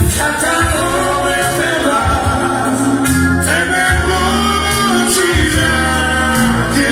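Live band music with a singer: a sung melody over a bass line that moves to a new note about once a second.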